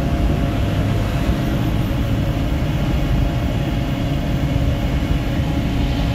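Vehicle travelling along a road: a steady, unchanging hum of engine, tyres and wind.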